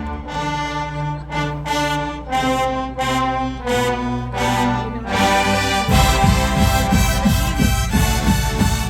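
Full college marching band brass section playing loud held chords that change every half second or so; about six seconds in a heavy pulsing low end joins under the brass.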